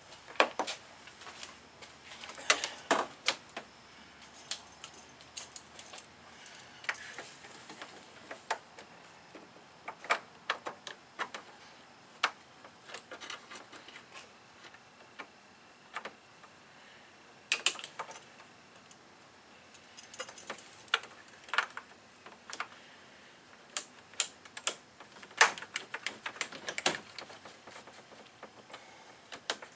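Irregular sharp metallic clicks and taps of hand tools and a radiator hose spring clamp being worked down in a cramped engine bay, while a lower radiator hose is taken off.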